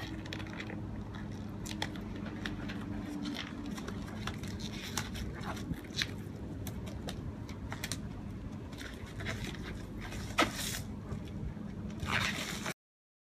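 Grey peel-off coating being rubbed with a microfiber cloth and peeled off a car door, giving scattered small crackles, clicks and scrapes, with a denser crackling burst near the end. A steady low hum runs underneath.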